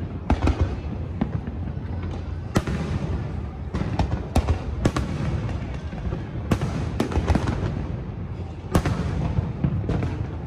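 Aerial firework shells bursting overhead: a rapid, irregular string of sharp bangs, some in quick clusters, over a continuous low rumble.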